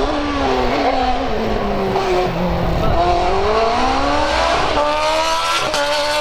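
Race car engine running hard, its pitch dropping for a couple of seconds as it slows, then climbing again as it accelerates, with a brief break in the note near the end.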